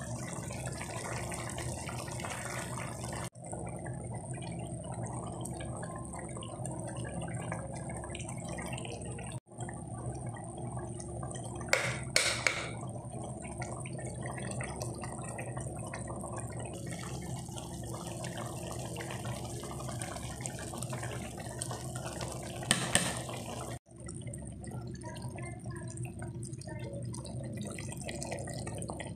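Crab curry simmering and bubbling in a pan over a steady low hum, with two brief sharp noises, about twelve and twenty-three seconds in.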